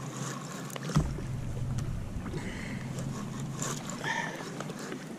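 Water lapping against a sea kayak's hull, with light wind on the microphone. A single sharp knock about a second in.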